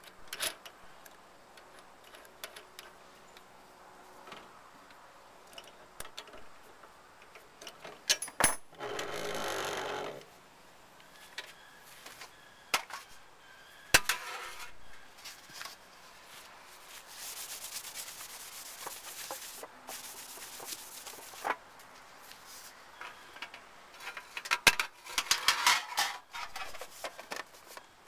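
Hands working at a drill press, with scattered clicks and knocks of metal parts and a metal tin being handled on the cast-iron table. There is a short rattling burst about eight and a half seconds in and a stretch of rubbing and scraping in the middle.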